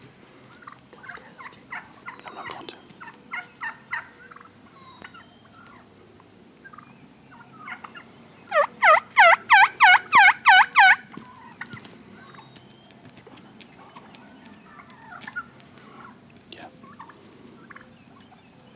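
Turkey yelping: a fainter series of yelps in the first few seconds, then a loud, fast run of about eight yelps in a row about eight and a half seconds in.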